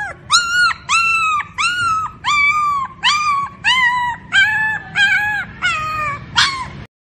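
A dog yipping over and over, about a dozen short high-pitched yelps at roughly two a second, each arching up and down in pitch. The last one, near the end, sweeps up higher.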